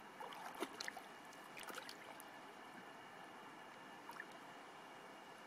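Faint sloshing and small splashes of shallow water as a large mirror carp is turned over by hand in the water, a few splashes coming in the first two seconds and one more about four seconds in.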